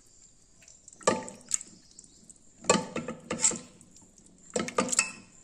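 A wooden masher mashing cooked brinjal in gravy inside a metal pressure cooker pan, making wet squelches and knocks against the pot. The strokes come in three short bursts, starting about a second in.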